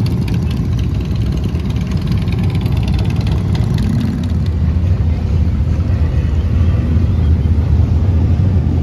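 Many motorcycle engines idling and running close by. About four seconds in the sound changes abruptly to a steadier, deeper engine sound.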